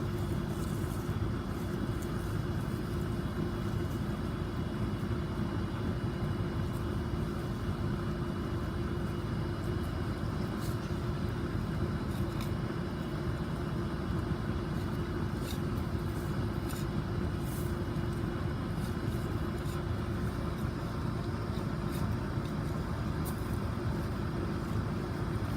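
Steady low rumble with a constant hum, like a machine running nearby, with faint scattered rustles as hands dig through garden soil.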